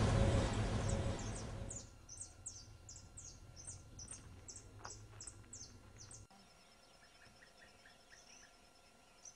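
A small bird calling a quick series of short, high, downward-sweeping chirps, about three a second, over faint outdoor ambience. About six seconds in it cuts to a quieter scene with faint distant chirps and a thin steady high tone.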